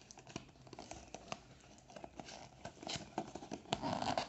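A small cardboard box being pried open by hand at its end flap: a run of short scrapes, scratches and clicks of cardboard, growing busier and louder near the end.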